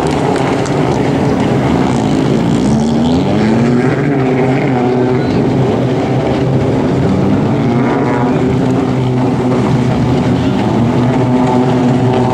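Racing jet-ski engines running at high revs, their whine rising and falling in pitch as the craft pass and turn.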